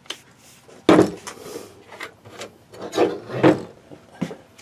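Knocks and scrapes of tools being handled and set down on a table, including a metal paint-mixing paddle being laid down. A handful of separate knocks, the loudest about a second in and again around three seconds in.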